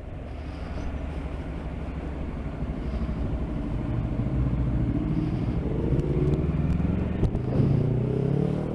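Motorcycle engine running low, then accelerating from about four seconds in, its pitch rising. A gear change breaks the climb near seven seconds, then the pitch climbs again.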